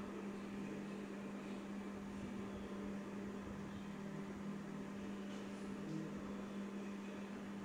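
A steady low hum with a faint even hiss under it.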